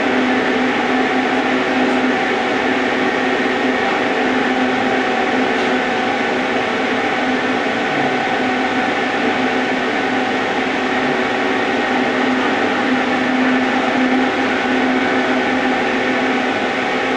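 A steady machine hum over a hiss, running without a break or change in pitch.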